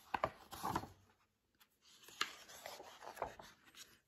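Page of a hardcover picture book being turned by hand: several short, soft paper rustles and flaps.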